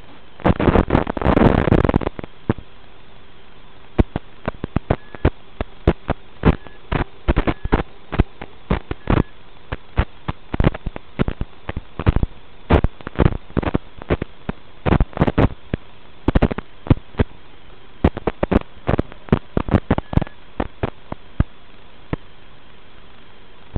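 Hiss and static from an analog FPV video link, broken by irregular sharp crackles and pops as the signal breaks up, thickest about the first two seconds, under a faint steady hum.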